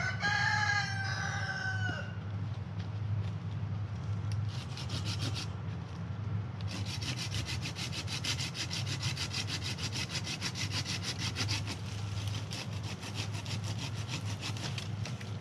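A rooster crows once at the start. Then a hand saw cuts through a green maple branch in rapid, even strokes: a short burst first, then steady sawing for about eight seconds, over a steady low hum.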